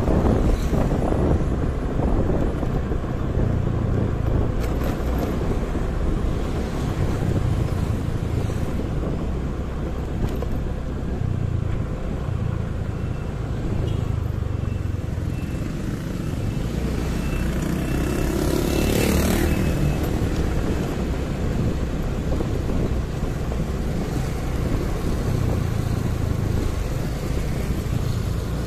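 Riding a motorcycle through city traffic: a steady low rumble of engine and road noise. About two-thirds of the way in, another vehicle passes close and rises briefly above the rest.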